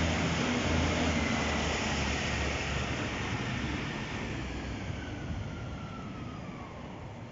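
Class 156 Super Sprinter diesel multiple unit departing under power: its Cummins diesel engines throb low and steady over wheel and rail noise, with a thin whine sliding down in pitch as the train draws away. The sound fades over the last few seconds.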